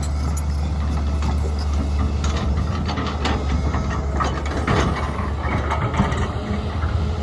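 SANY SY205C excavator running steadily with a deep engine drone, overlaid by frequent metallic clanks and rattles from the working machine.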